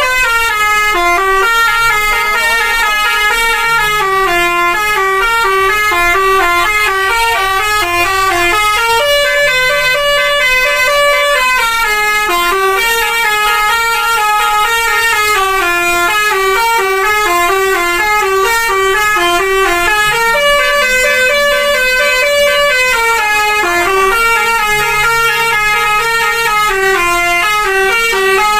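Telolet bus horn, the multi-tone musical horn of Indonesian buses, playing a long winding tune. It runs in quick up-and-down runs of notes without a break.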